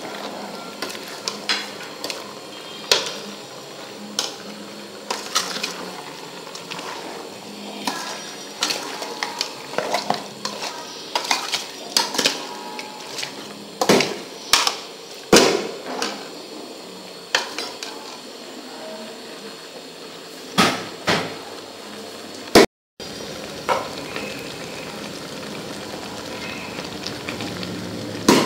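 Metal ladle knocking and scraping against a metal cooking pot as a chunky duck curry is stirred, in irregular clanks over a steady sizzle from the hot pot. The sound cuts out for a moment about two-thirds of the way through.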